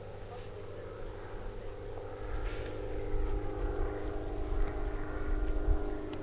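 A steady engine drone with a low rumble underneath, holding at an even pitch throughout.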